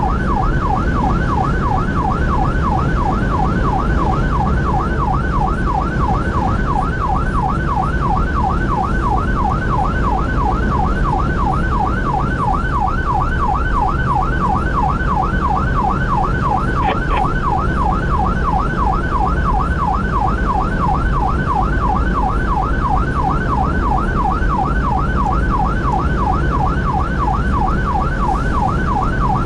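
Emergency response vehicle's siren in yelp mode: a rapid rising-and-falling wail, about three to four sweeps a second, heard from inside the cab over steady engine and road rumble.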